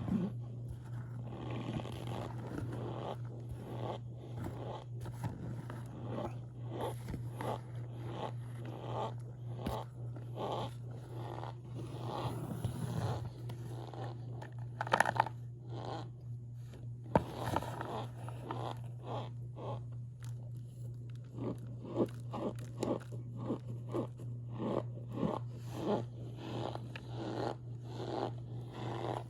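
Cornstarch chunks and powder being bitten and chewed close to the microphone: a steady run of squeaky crunches, a few every second, over a steady low hum.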